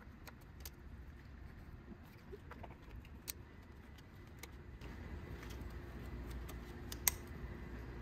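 Scattered light clicks and clinks as new Delphi ignition coil packs are handled, plugged into their connectors and pushed down onto the spark plugs, with one sharper click about seven seconds in, over a faint low hum.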